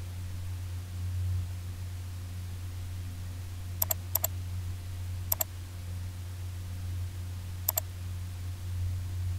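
Computer mouse button clicked four times, each click a quick press-and-release pair, as vertices are picked on screen. A steady low hum runs underneath.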